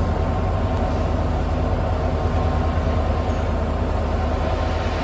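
Diesel locomotives of a heavy freight train, led by EMD WDG4D and WDG4 units, working under load: a steady deep engine drone with a steady higher whine above it.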